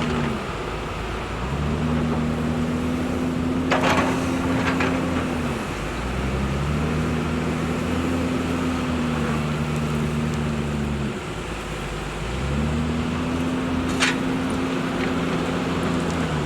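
Hyundai excavator's diesel engine running, its pitch stepping up and holding for a few seconds, then dropping back, three times as it works under load. A few sharp clanks cut in along the way.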